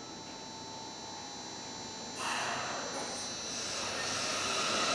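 Sapporo subway 5000-series train standing at the platform with a steady electrical hum. About two seconds in, a sudden rush of hissing noise starts and keeps building as the train begins to pull away.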